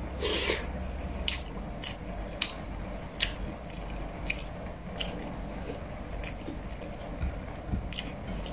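A man chewing pork hamonado with wet mouth clicks and lip smacks at irregular intervals, roughly one every half second to second. There is a brief louder noisy sound just after the start.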